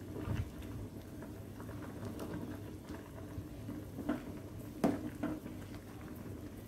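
Fish soup simmering in a stainless steel pot while a ladle stirs it, with light patter and small scrapes, and one sharper knock of the ladle about five seconds in. A faint steady hum sits underneath.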